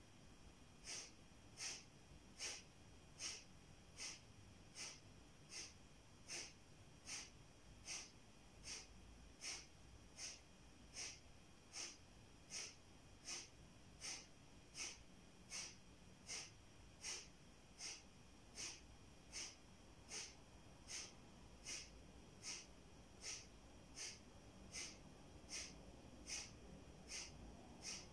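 Kapalabhati pranayama breathing: faint, sharp, evenly paced exhalations forced out through the nose, a little faster than one a second, each a short hiss with the in-breaths barely heard between them.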